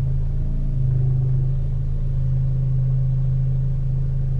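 Audi A4 B8.5 engine idling, heard from inside the cabin as a steady low drone. The car is shaking at a stop, which the owner puts down to the new, stiffer motor mounts.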